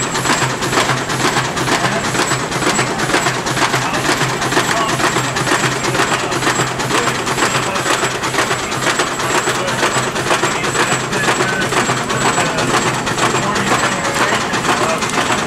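1904 American LaFrance steam fire engine running as it pumps, its steam engine chuffing in a rapid, even beat.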